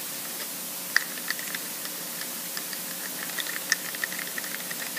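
Wooden mixing stick stirring liquid urethane in a small plastic cup, scraping and tapping the cup wall in a run of light, irregular ticks over a steady background hiss.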